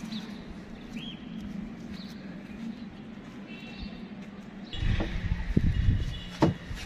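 Short bird chirps over a steady low hum. About five seconds in, loud irregular low rumbling with sharp knocks comes in.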